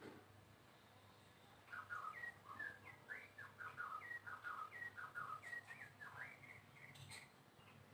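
White-rumped shama (murai batu) singing faintly: a quick run of short whistled notes starting about two seconds in and lasting about five seconds, with a soft click near the end.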